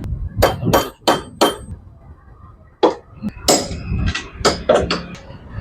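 Hammer striking metal: a quick run of four blows, a single blow, then a ragged group of several more, some with a metallic ring. It is knocking loose a suspension part that has seized tight from not being opened for a long time.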